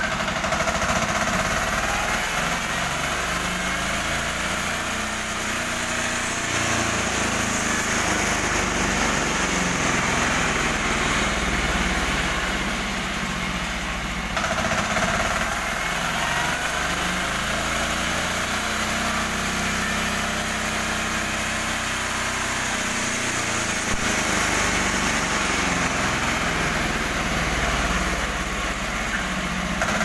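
Small engine on a portable band sawmill running steadily under load while the band saw blade cuts lengthwise through a log.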